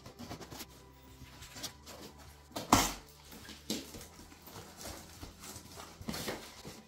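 Cardboard box being opened by hand: tape slit with a utility knife and the cardboard flaps pulled open, giving rustles and knocks, with one sharp, loud knock a little before the middle.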